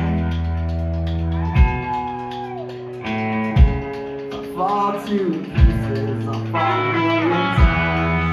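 Live rock band playing an instrumental passage: electric guitar with bending lead notes over sustained chords and bass, and a heavy drum hit about every two seconds.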